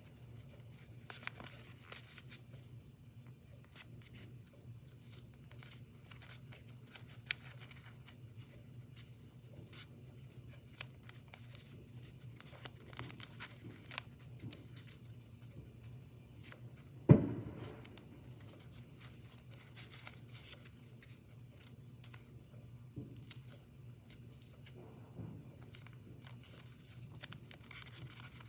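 Blue origami paper rustling and crinkling as it is folded and creased by hand, with many small clicks, over a steady low hum. A single sharp knock a little past halfway is the loudest sound.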